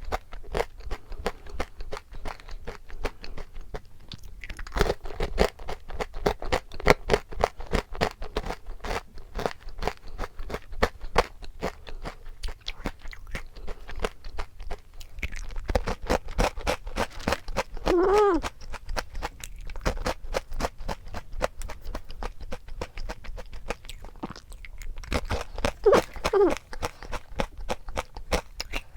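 Close-up chewing of a crunchy snack: dense crackling crunches throughout, with two brief vocal sounds about 18 and 26 seconds in.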